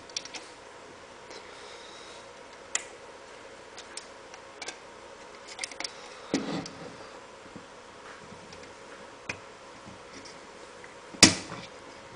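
Small plastic clicks and handling noise as plastic studs are pressed into the holes of a Mikropoynt enclosure's plastic base and metal plate to lock it in place. One sharp, loud snap comes about eleven seconds in.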